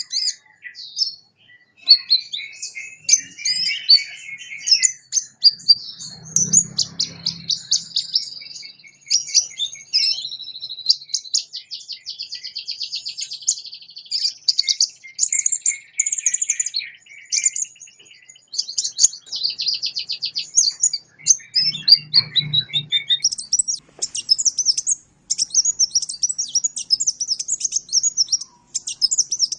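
Sunbird song: a dense run of high, rapid chirps and fast trills, with brief breaks a fifth and about three quarters of the way through.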